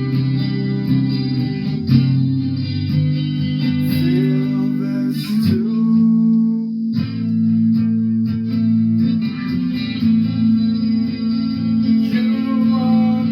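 Guitar music with sustained chords and sliding notes, joined by a voice gliding in pitch near the end.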